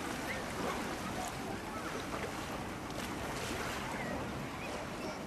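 Small outboard motor on an inflatable boat running at low speed over the water, under steady wind noise on the microphone, with faint distant voices.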